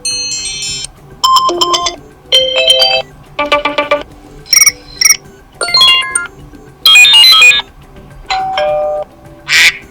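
iPhone 15 Pro Max default ringtones played as short previews in quick succession: about nine different chiming, melodic tones in ten seconds, each cut off after under a second before the next begins.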